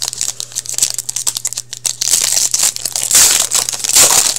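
Hockey card packaging being torn open and crinkled: a dense run of crackles and tears that grows busier and louder in the second half.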